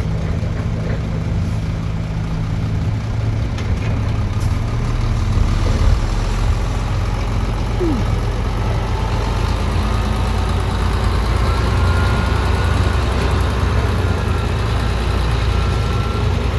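Heavy diesel engines of construction machinery running steadily, a dump truck backing up near large tracked excavators, swelling slightly about five seconds in.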